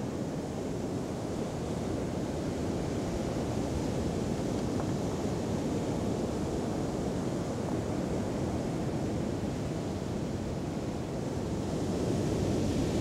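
Mediterranean surf washing on the shore with wind on the microphone: a steady rushing noise that swells a little near the end.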